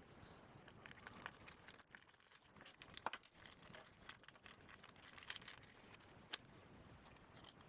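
Faint crinkling and light ticks of trading cards and their plastic sleeve being handled, with one sharper click near the end.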